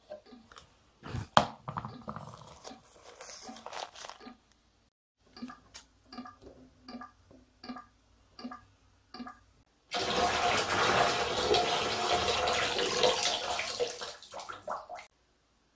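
Rustling and clicks of a bath-salt packet being handled, then a row of evenly spaced soft ticks, about two a second. Then water from a bathtub faucet runs loudly into a plastic foot-bath basin for about five seconds and stops.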